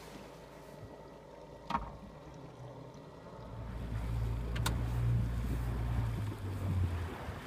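Low wind rumble buffeting the microphone over the open water, swelling about three and a half seconds in and easing near the end, with two sharp taps, one before the swell and one during it.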